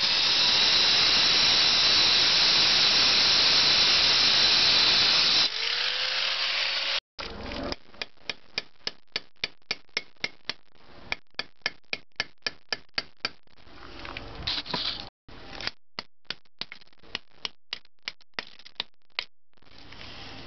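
Angle grinder cutting into a buried ceramic drain pipe to open an inspection hole, with a loud steady grinding. About five and a half seconds in, the disc leaves the cut and the motor runs on alone. A hammer then taps out the cut-out piece of pipe with light sharp blows, about three a second, in two runs.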